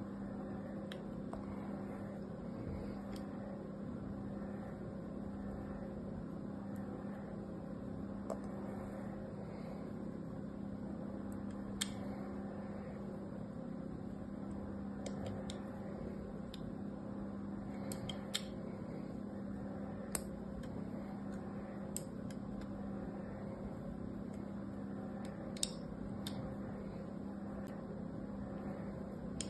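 The point of a scissor blade scoring lines into a bar of dry soap, heard as scattered short, crisp scratches and clicks over a steady low hum.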